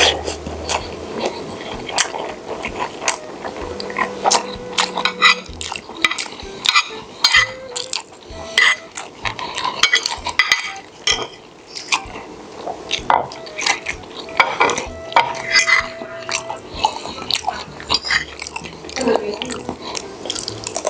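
Cutlery clinking and scraping against a plate during eating, in many quick, irregular clicks.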